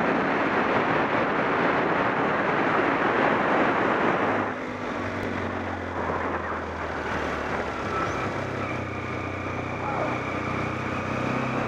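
Yamaha Super Ténéré motorcycle being ridden, with heavy wind noise on the microphone. About four and a half seconds in the wind noise drops and the engine's steady low note comes through.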